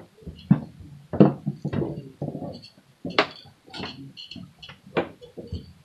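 Hands handling trouser fabric and a metal zipper: irregular rustles and short clicks with small metallic clinks.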